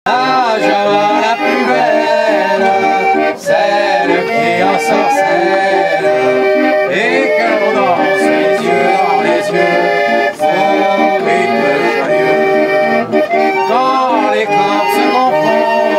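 Hand-cranked street organ (orgue de Barbarie) playing a tune from punched cardboard book music, with sustained reedy chords and melody throughout, and a man singing along.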